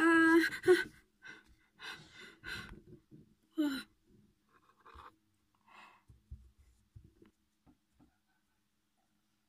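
A person gasping awake, then breathing hard in short, separate breaths with a brief falling sigh. A few faint light taps follow in the second half.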